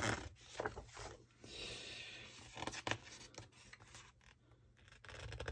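Large glossy pages of a big hardback book being turned, the paper sliding and rustling, with a few light taps about three seconds in.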